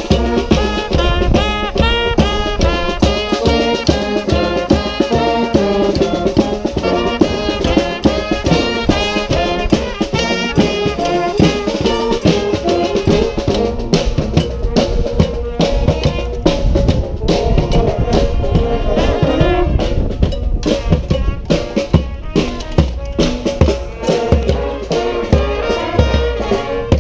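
Street brass band playing: horns carrying a melody over a steady beat of drums and bass drum.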